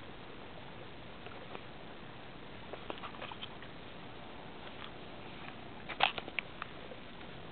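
Small clicks and crackles of twigs and bark as someone climbs through willow branches, over a steady hiss, with a quick cluster of sharp snaps about six seconds in.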